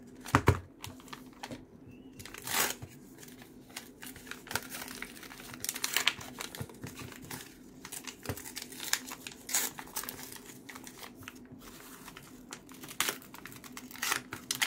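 Packaging crinkling and rustling in irregular bursts as it is carefully unwrapped by hand from around a coin's blister pack, with two sharp knocks about half a second in.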